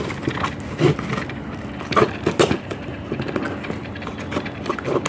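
Packing tape being cut and peeled off a cardboard box: irregular scraping, crinkling and short knocks of tape and cardboard being handled.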